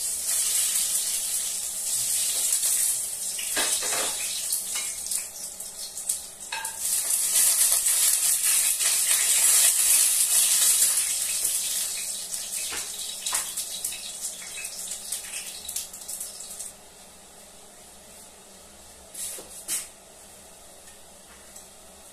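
Cumin and dried chillies sizzling in hot oil in a pan. The sizzle is loud, swells about six seconds in, then dies away over the next several seconds. A few clinks of a spoon against the pan sound through it.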